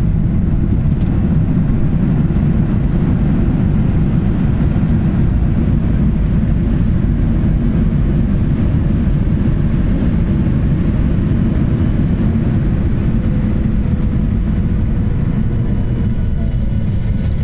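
Jet airliner cabin noise heard from a window seat: a steady low rumble of the engines and the wheels rolling on the runway. A faint whine comes in near the end and slides slightly lower.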